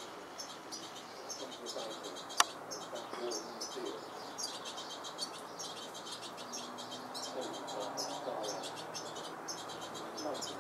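European goldfinches calling: many short, high chirps in quick succession. A single sharp click sounds about two seconds in.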